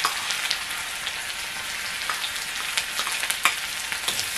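Chopped onion sizzling in hot oil in a metal kadai, with scattered clicks of a spoon knocking against the bowl and a spatula scraping the pan as it is stirred.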